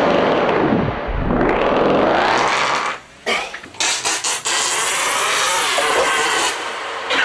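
Recorded farts processed through an Instruo Lúbadh looper in a Eurorack modular synth, their pitch sweeping down and back up in swoops. About three seconds in the sound drops out briefly and stutters, then resumes as a sustained noisy drone.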